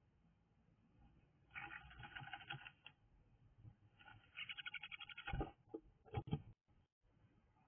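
A bird scratching and shuffling nest material inside a nest box, in two faint scratchy bouts, the second a quick run of ticks, followed by a few dull thumps near the end.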